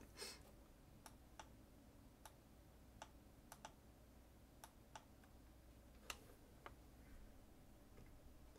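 Faint, irregularly spaced clicks of a computer mouse, about a dozen, over near silence; the loudest comes about six seconds in.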